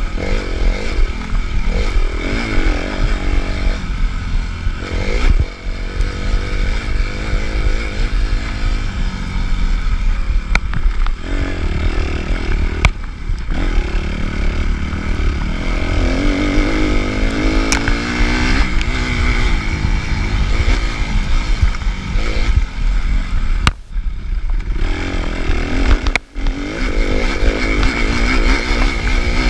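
Suzuki RM-Z 250 four-stroke single-cylinder dirt bike engine revving up and down under hard riding, with short throttle-offs about five seconds in and twice near the end. Sharp clicks and clatter from the bike over rough ground cut through now and then.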